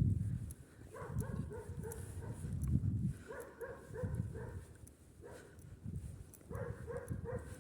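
An animal calling in short, pitched notes, in groups of three or four, with a low rumbling noise underneath.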